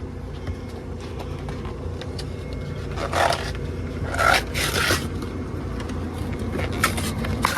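Aluminium soda cans being loaded into a drink vending machine's columns: two scraping slides about three and four seconds in, then a few sharp clicks near the end, over a steady low hum.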